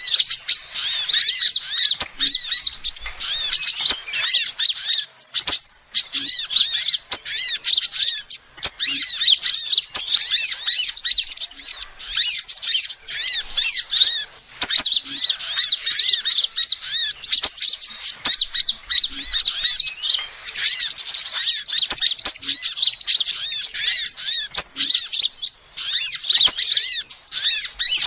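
Female sunbird calling: a rapid, continuous stream of high-pitched, arching chirps, broken by brief pauses every few seconds.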